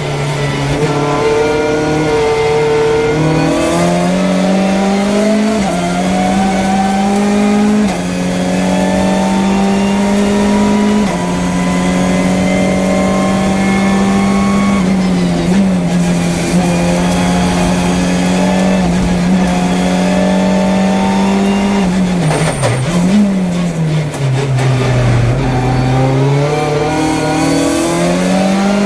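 Hyundai i30 N TCR's turbocharged four-cylinder engine at racing speed, heard from inside the cockpit: it climbs in pitch through the gears with several quick upshifts. About 22 seconds in it drops sharply through downshifts with brief throttle blips under braking, then pulls again from low revs.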